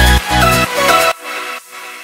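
Electronic dance music with a heavy bass beat and synth notes; about a second in the beat drops out, leaving only quieter high synth notes that fade away.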